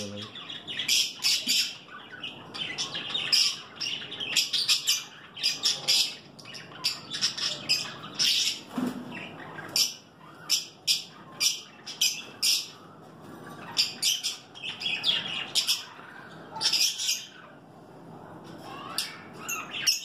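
A colony of caged budgerigars and blue masked lovebirds chirping and squawking, a constant chatter of short, shrill calls coming in quick bursts.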